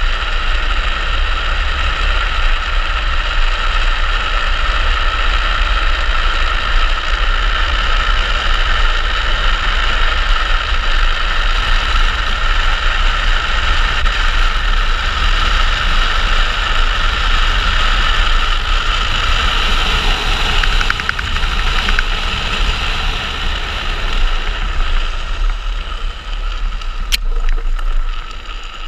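Speed trike coasting fast downhill: a steady rush of wind buffeting a helmet-mounted camera microphone, mixed with the roll of the wheels on asphalt. A single sharp click sounds near the end as the noise eases off.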